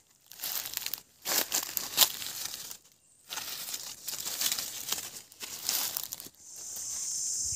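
Dry fallen leaves crackling and rustling in several bursts as a hand sorts through them and picks them up from the ground. Near the end a steady high-pitched drone sets in.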